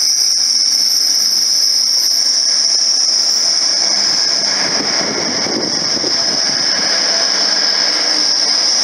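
Grand Central Class 180 diesel multiple unit pulling away from the platform, its diesel engines running under power. A steady high-pitched whine sits over the train noise, and a rougher rumble comes in about halfway through.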